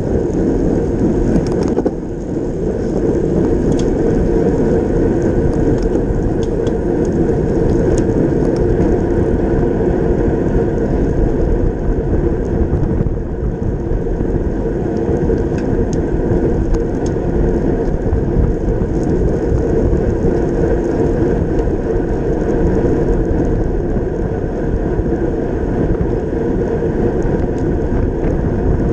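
Steady wind rush and rumble on a racing bicycle's mounted camera at speed, with the whir of the tyres on the road and a few faint clicks.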